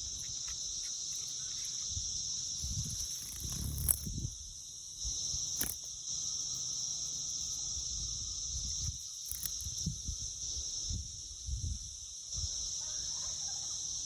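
A chorus of periodical cicadas gives a continuous, steady high-pitched buzz. Under it there is an uneven low rumble on the microphone and a few sharp clicks.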